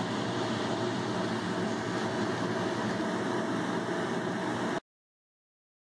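Steady whoosh of a DAKA 521FB wood furnace running with its two blower fans pushing air, with a faint steady hum in it; it cuts off abruptly just under five seconds in.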